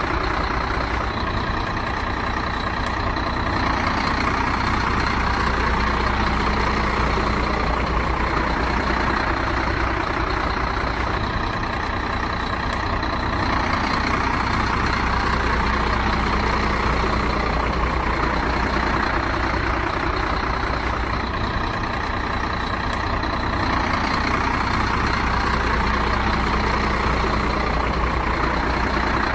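Heavy truck engine sound running steadily, a recorded loop that repeats about every ten seconds.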